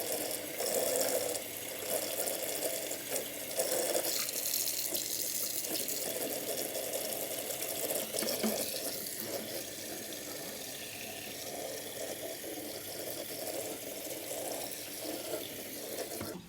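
Kitchen faucet running a steady stream of water down into the sink's garbage disposal to rinse it out, shut off abruptly near the end.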